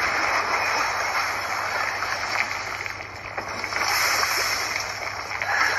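Action-film sound effects played from a screen and re-recorded: a steady rushing, splashing noise with a few faint cracks as debris flies.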